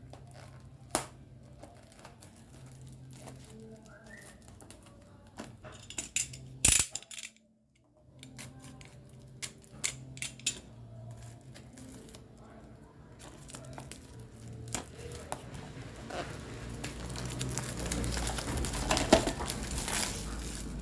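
Clear plastic shrink-wrap crinkling and rustling as it is peeled off a DVD case, with scattered sharp clicks of the case being handled. There is a brief silence about seven seconds in, and the crinkling grows denser and louder over the last several seconds.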